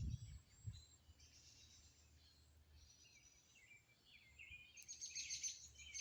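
Songbirds chirping and calling faintly, with a busier run of quick chirps near the end. A few low bumps in the first second.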